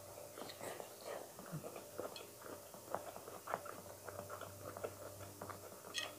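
A person chewing a mouthful of food close to the microphone: faint, irregular small clicks and mouth noises, over a low steady hum.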